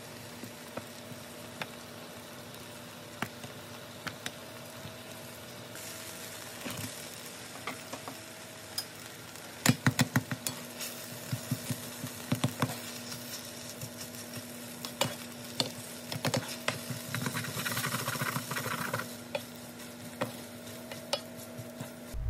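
Rice and spicy chicken-feet sauce sizzling in a nonstick frying pan while a wooden spoon stirs and mashes it, with a burst of sharp knocks of the spoon against the pan about ten seconds in. A steady low hum runs underneath.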